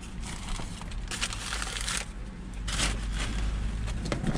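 Plastic packaging and bags crinkling and rustling in irregular bursts as gear is handled, over a steady low rumble of wind on the microphone.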